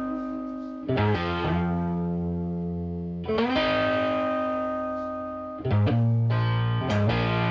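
Background music: held guitar chords that change every two seconds or so.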